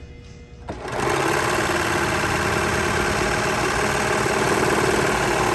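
Baby Lock Celebrate serger starting about a second in and running steadily at speed, sewing a three-thread rolled edge along a strip of fabric.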